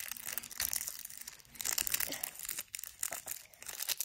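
Clear plastic candy wrapper crinkling in a hand, with irregular quick crackles as it is handled.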